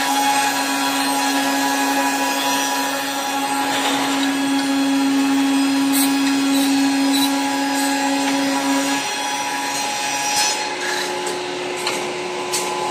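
Woodworking machines of a broomstick production line running, with electric motors and cutters shaping wooden sticks. A steady machine hum holds, then changes to a higher-pitched hum about ten seconds in, with a few light clicks along the way.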